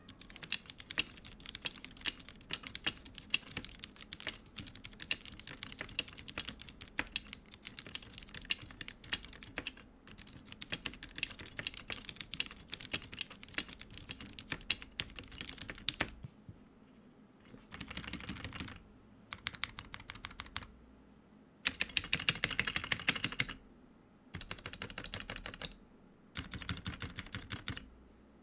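Typing test on a GMK67 custom keyboard fitted with old Cherry MX Black linear switches and ABS keycaps: steady fast keystrokes for about sixteen seconds, then several short bursts of rapid key presses with brief pauses between them, the loudest burst about two-thirds of the way through.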